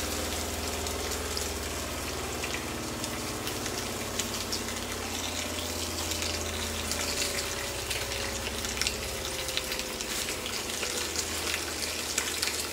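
Rump steak sizzling in a very hot cast-iron skillet: a steady hiss with scattered crackles and pops, over a low steady hum.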